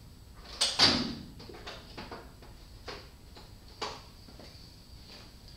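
Rummaging through tools while searching for a socket extension: a loud clatter about a second in, then a few light knocks and clicks.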